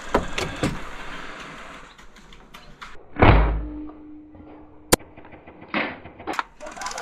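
A spring-powered foam-dart sniper blaster, with its spring turned down for about 300 fps, being handled and fired: a few light clicks, one heavy thump about three seconds in, and a sharp click near five seconds.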